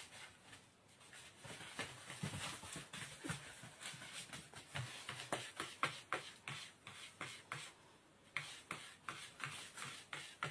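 Cats' paws scrabbling and skidding through granulated sugar spilled over a wooden floor: an irregular run of short scratches and taps, several a second, easing off briefly about eight seconds in.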